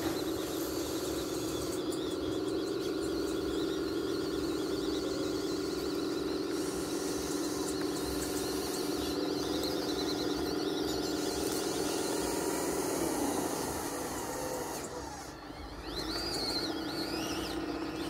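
Whine of a radio-controlled model D11 bulldozer's electric track motors and gearboxes as it pushes dirt, a steady squeal whose pitch slides down about thirteen seconds in, dips, and rises again near the end.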